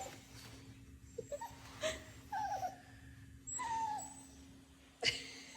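Corgi whining in several short whimpers that fall in pitch, in protest at being wiped clean and held still. A sharp click comes near the end.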